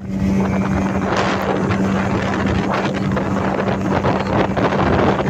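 Speedboat under way: its engine runs with a steady hum, mixed with wind buffeting the microphone and rushing water.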